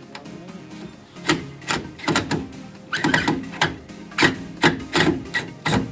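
A string of sharp knocks, about a dozen at uneven spacing starting about a second in, over background music.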